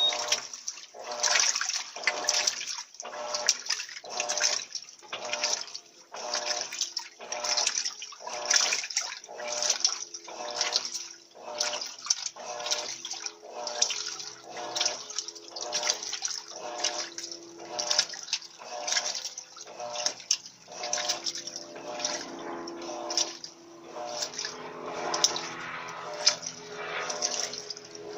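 Turbo 13 kg (LT13B) top-loading washing machine agitating a load in water, its motor hum and the swish of water rising and falling in a regular rhythm about one and a half times a second. After about twenty seconds the surges run together into a steadier churning.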